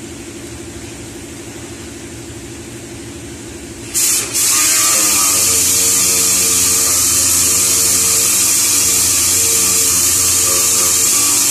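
A steady low hum, then about four seconds in an orbital sander starts up, its pitch rising briefly as it spins up. It then runs loud and steady with a strong hiss, sanding the old paint on a truck fender ahead of a colour change.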